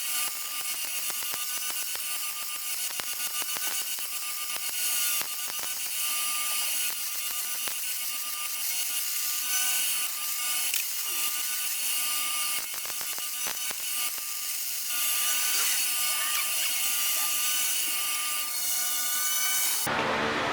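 Welding arc crackling steadily on the brush hog deck's steel while a crack is welded up, cutting off abruptly near the end.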